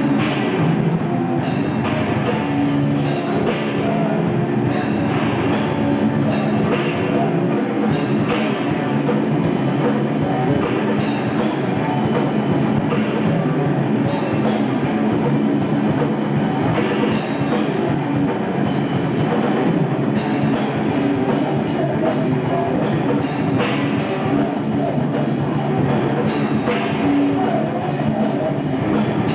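Heavy metal band playing live: distorted electric guitars over a steadily pounding drum kit, loud and unbroken.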